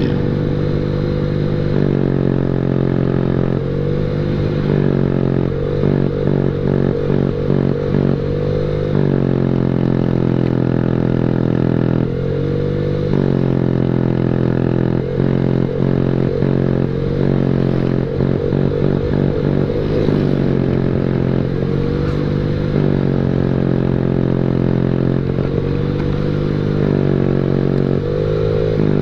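Honda Beat scooter's single-cylinder engine running through a loud aftermarket WRC racing exhaust ('mber' sound), ridden on the road. It rises in pitch again and again as the throttle opens. Twice it breaks into a rapid stuttering of pulses, about three a second, as the throttle is rolled on and off.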